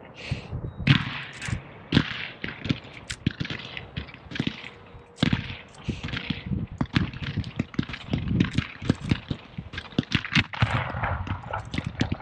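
Aerial fireworks display: an irregular run of sharp bangs and pops from shells launching and bursting, a few spaced reports at first, then several a second in the second half.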